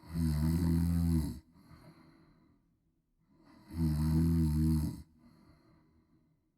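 A woman snoring loudly: two long snores about three and a half seconds apart, each followed by a quieter breath.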